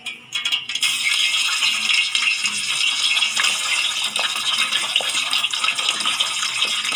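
A whole boiled chicken, still wet with broth, going into very hot deep-frying oil: the oil breaks into loud, dense crackling and sizzling about a second in and keeps up steadily.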